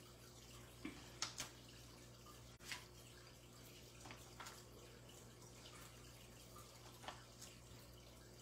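Faint scratches and small clicks of fingernails picking foam adhesive dimensionals off their backing sheet, a few scattered picks over a low steady hum.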